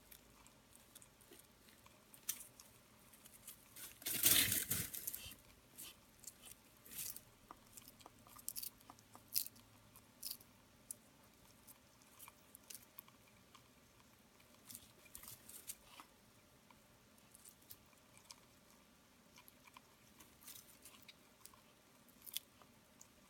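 Northern blue-tongued skink crunching and chewing a dubia roach: scattered crisp crunches and clicks, with one longer, louder crunching burst about four seconds in.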